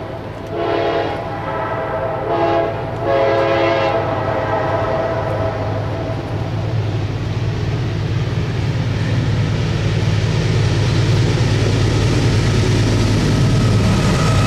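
Diesel freight locomotive's air horn sounding three blasts in the first four seconds, the last the longest. The locomotive's engine rumble then grows louder as the train approaches.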